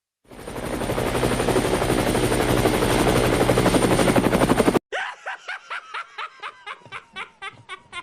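Editing sound effects: a fast rattling whir that builds in level for about four and a half seconds and then cuts off suddenly, followed by a string of short pitched blips that come faster and faster.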